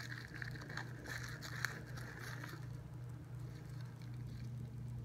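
Plastic bubble-wrap packing crinkling and rustling as it is handled and opened, with small crackles, dying down about two and a half seconds in. A steady low hum runs underneath.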